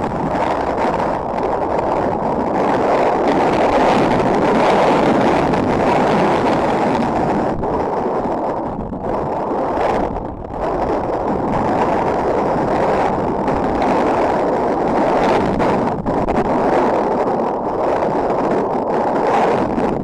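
Strong wind buffeting the nest camera's microphone: a steady, loud rushing rumble that eases briefly about halfway through.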